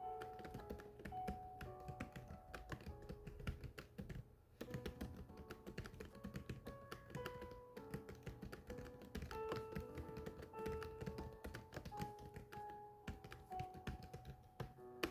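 Rapid, irregular clicking of keys being typed, with a brief pause about four seconds in, over soft background music of held melodic notes.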